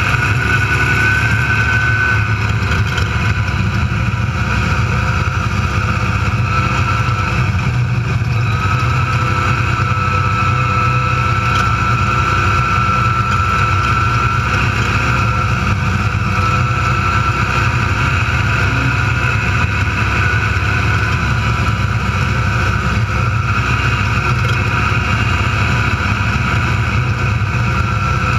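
Desert race car driving at speed, heard from inside its cab: the engine and drivetrain run steadily with a thin high whine on top.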